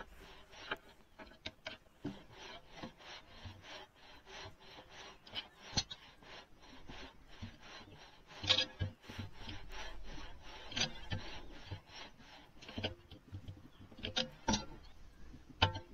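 A hand tool scraping in short, repeated rasping strokes, a few a second, with sharper, louder strokes about eight and a half and fourteen and a half seconds in.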